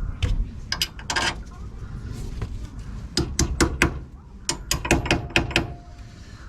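Ratchet wrench clicking as the front brake adapter bracket bolts are run in on the hub, in two quick runs of five or six clicks after a first cluster of knocks.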